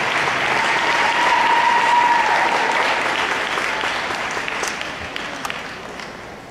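Audience applauding in a large arena, dying away over the last few seconds.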